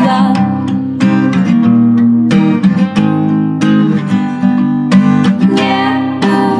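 Song music without vocals: acoustic guitar strumming chords in a steady rhythm.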